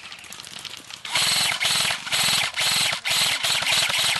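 Airsoft electric rifle firing on full auto close to the microphone: about six short bursts of very fast mechanical clicking from the gearbox cycling, starting about a second in. Before the bursts there is quieter, fast ticking.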